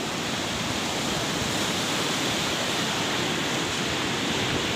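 Muddy floodwater rushing steadily down a swollen stream channel, an even, unbroken sound of running water.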